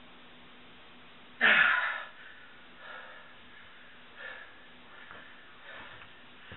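A man's loud gasping exhale with a falling pitch about a second and a half in, then several softer heavy breaths: he is out of breath from bending a steel wrench by hand.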